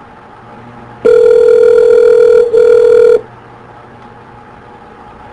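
Telephone ringback tone on an outgoing call: one loud steady tone of about two seconds, starting about a second in, with a brief dropout partway through. It means the called phone is ringing. A faint steady line hum sits underneath.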